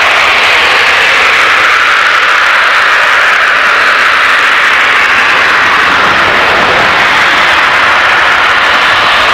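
Natural-gas compressor station blowdown: pressurised gas venting to the air through a stack, a loud, steady rushing hiss like a jet. The hiss dips slightly in pitch midway and rises again near the end.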